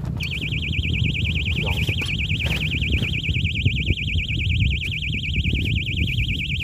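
Electronic alarm tone warbling rapidly and evenly up and down, starting just after the beginning, over low wind rumble.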